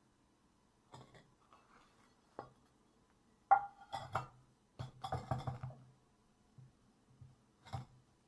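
Terracotta flower pot and clay saucers clinking and knocking together as the pot is handled and set down. A sharp ringing clink about three and a half seconds in is the loudest, followed by a quick rattle of knocks around five seconds and one more knock near the end.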